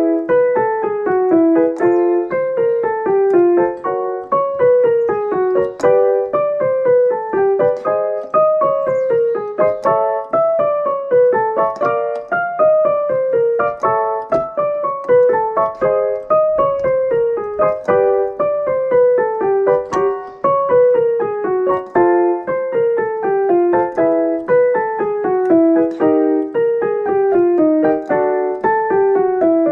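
Piano playing a vocal warm-up accompaniment: short descending scale runs, about one every two seconds, each repeat set at a different pitch, as for a singer moving through keys.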